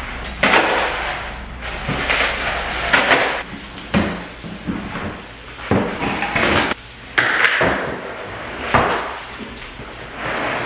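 Plastic packaging crinkling and cardboard rustling and knocking as a full-length mirror is unpacked from its shipping box, with a run of sharp knocks and scrapes about once a second.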